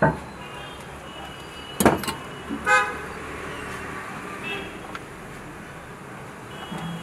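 Street traffic noise with a short vehicle horn toot about three seconds in, just after two sharp knocks.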